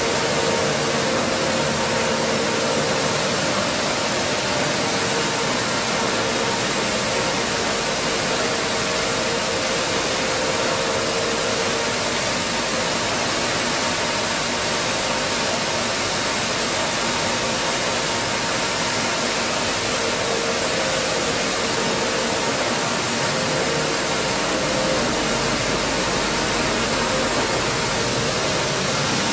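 Steady machinery noise of a running stone flour mill plant, its stone grinding mills and motors making an even rushing din with a faint hum that fades and returns.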